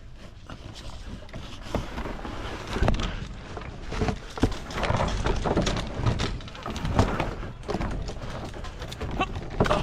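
Irregular knocks, thuds and scuffs, as of a player moving fast on foot with gear rattling. There is no steady tone.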